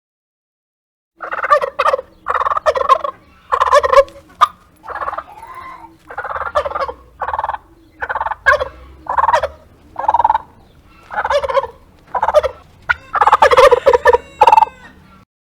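Turkey gobbling again and again, a long series of short rattling calls starting about a second in, with the calls crowding together near the end.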